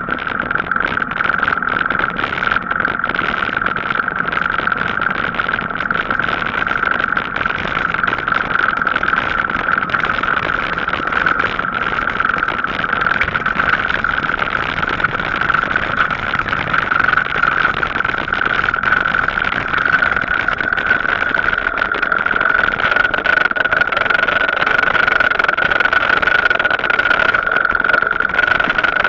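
Steady rushing noise of riding a Gazelle Paris C7 e-bike along a cycle path, with a steady high-pitched whine throughout.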